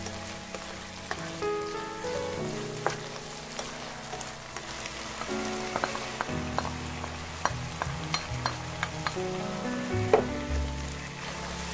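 Perilla leaves stir-frying in oil in a nonstick pan, with a steady sizzle and the spatula clicking and scraping against the pan, over soft background music.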